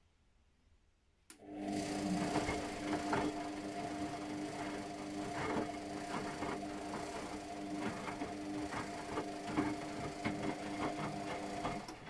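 Luxor WM 1042 front-loading washing machine's drum motor starting with a click about a second in and turning the drum with a steady hum, water sloshing and small knocks, then stopping just before the end.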